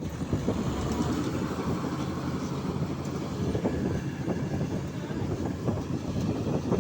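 Combine harvester's diesel engine running steadily, with a rattling clatter of the machinery. It comes in abruptly right at the start.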